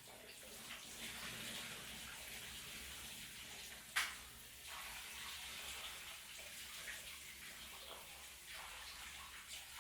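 Shower running, water spraying and splashing with a wavering hiss, and a single sharp click about four seconds in.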